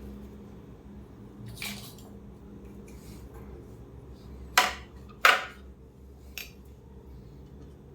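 Hard parts of a Philips steam iron being handled during its teardown: a short scrape, then about halfway through two sharp clacks less than a second apart, followed by a lighter click, over a faint low hum.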